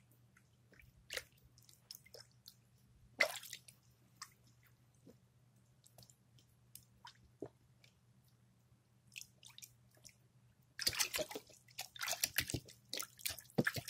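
Hands working a clear, wet, jiggly substance: scattered soft drips and small wet clicks, then a dense run of squishing and squelching near the end. A faint steady low hum lies underneath.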